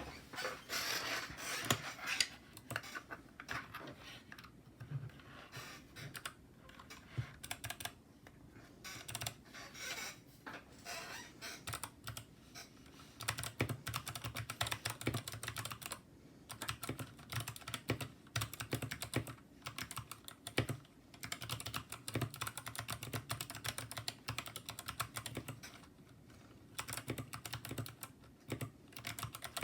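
Typing on a mechanical keyboard fitted with PBT keycaps: a fast, irregular run of key clicks that pauses briefly about halfway through.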